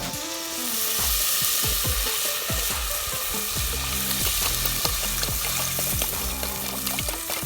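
Food sizzling as it fries in hot oil in a pan, with small clicks and scrapes of stirring.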